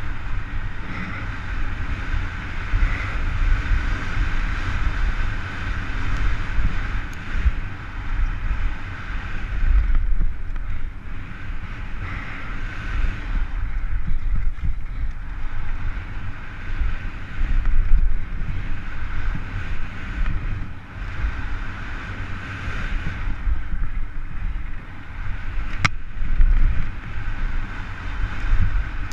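Wind buffeting a helmet-mounted camera's microphone at speed, over the rolling rumble of a downhill mountain bike's tyres on a dry, rocky dirt track. There is a sharp click near the end.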